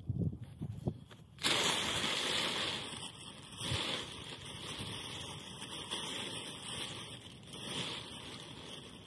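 Black plastic tarp rustling as it slides over the ground. The rustling starts abruptly about a second and a half in, after a few low thumps, is loudest for the next couple of seconds, then goes on more softly in swells.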